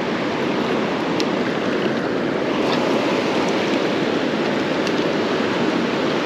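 Steady rushing of stream water, an even noise without a break, with a few faint ticks.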